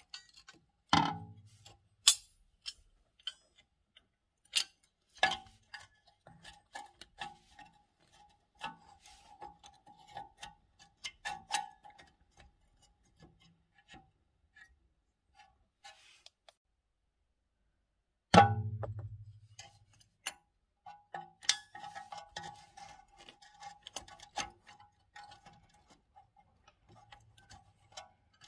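Metal clicks, taps and scrapes from the handbrake shoes and their coiled return spring being fitted inside a BMW E90's rear drum-in-disc parking brake, with two sharp ringing clanks, one about a second in and one about two-thirds of the way through.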